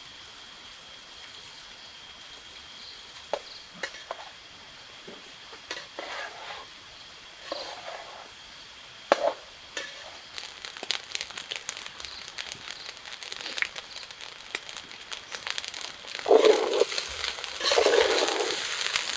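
Fried rice being stirred with a metal spatula in a metal pot over a wood fire: scattered crackling and sizzling thickens from about halfway, and two loud scraping stirs of the spatula come near the end.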